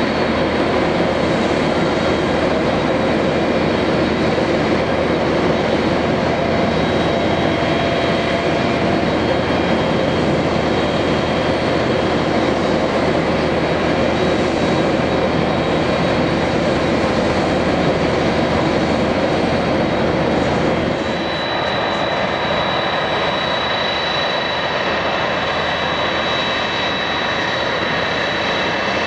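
Boeing 747-400D jet engines running with a steady rush. About two-thirds of the way through it cuts abruptly to a slightly quieter engine sound with a steady high-pitched whine as a 747 taxis.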